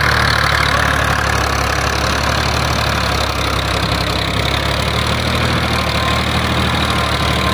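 Fiat 480 tractor's three-cylinder diesel engine running steadily under load as it pulls an 11-tine cultivator through the soil.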